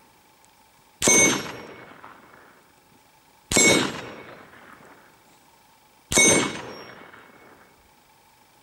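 Velmet armour-steel gong struck three times by rifle bullets, about two and a half seconds apart: each hit is a sharp clang that rings on in a high metallic tone and fades over a second or so.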